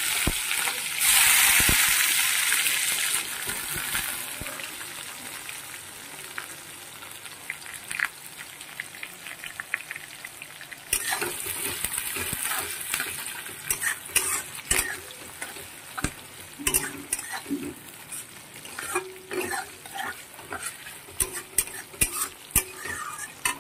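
Sliced onions sizzling in hot oil in a metal kadai, loud as they go in and fading over several seconds. About halfway through the sizzle picks up again as a metal spatula stirs the onions, with many sharp clicks and scrapes of the spatula against the pan.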